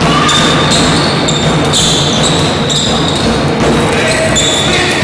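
Sounds of basketball play on a hardwood court in a gym: a basketball bouncing under a steady, loud wash of hall noise, with short high-pitched tones coming and going.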